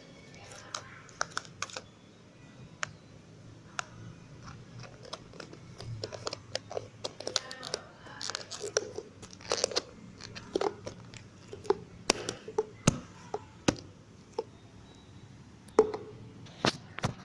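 Slime being squeezed and poked by hand, giving irregular sticky pops, clicks and crackles, some of them sharp and loud.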